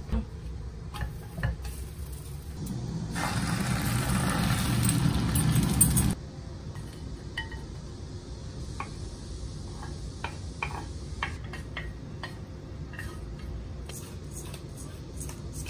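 Egg sizzling in hot oil in a frying pan for a few seconds, growing louder and then cutting off abruptly. Light clicks and clinks of a plate and a pepper grinder being handled follow, with a run of grinder clicks near the end.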